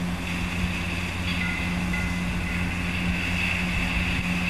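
A cheap Timex-branded LCD alarm clock's small built-in speaker playing one of its sleep-sound tracks: a steady rushing noise, with a couple of faint high tones about a second and a half in.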